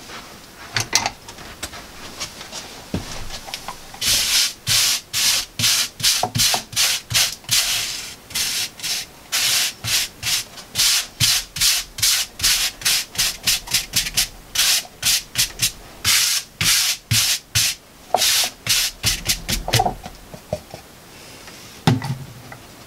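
A hand brushing across a board tabletop in quick, repeated rubbing strokes, about two a second, sweeping away dry flakes scraped off a squirrel skin. The strokes start about four seconds in and stop about three seconds before the end, followed by a couple of light knocks.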